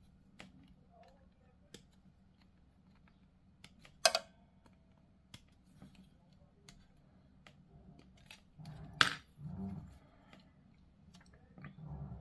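Small plastic miniature parts being snipped from the sprue and handled: scattered light clicks, with two sharper snaps about four and nine seconds in.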